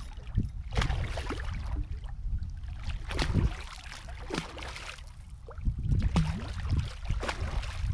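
Large redfish thrashing at the surface beside a kayak, a series of irregular water splashes and sloshes, heaviest about three seconds in and again near the end, over a steady low rumble.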